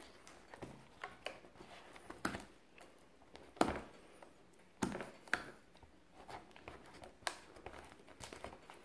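A thin blade scraping and cutting along the edge of a hard clear plastic blister pack, making irregular scratches and clicks, with a few sharper cracks of the plastic around three and a half and five seconds in.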